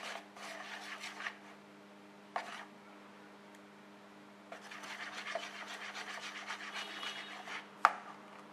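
Wire balloon whisk beating a flour-and-water batter in a plastic bowl: a quick run of scraping strokes, a pause, then a second run that ends in a sharp tap. A steady low hum lies underneath.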